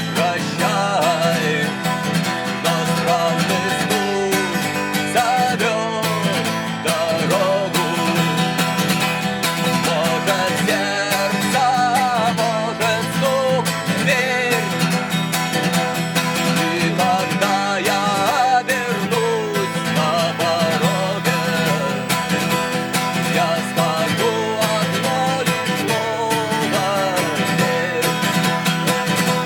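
A song performed live on strummed acoustic guitar, with a male voice singing over it.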